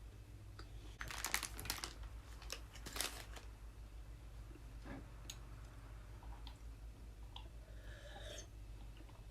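Eating sounds: crisp crunching bites and chewing of bread, with a dense run of crackles about a second in, another burst around three seconds, then scattered smaller clicks of chewing.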